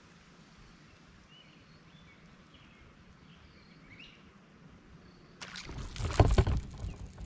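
Faint bird chirps over quiet lake air, then about five and a half seconds in, a loud splashing and knocking burst of a paddle stroke in the water beside a paddle board, peaking about a second later.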